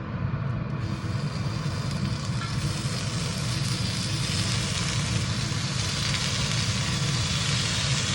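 Meat sizzling in a hot pan, the hiss setting in about a second in and growing steadily, over a constant low hum.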